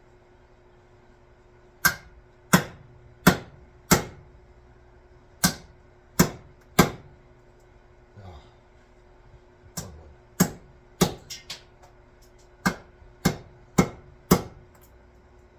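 Hard, ringing strikes on an axe handle and head, about fifteen blows in groups of three or four: work to seat the axe head on its new handle.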